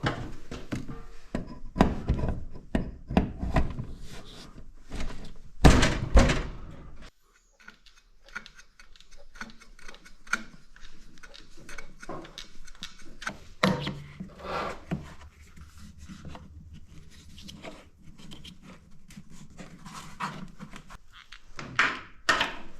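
Steel angle iron being handled and positioned on a metal work table: a run of knocks and clanks, loudest in the first several seconds, then lighter taps with a low steady hum coming in about halfway.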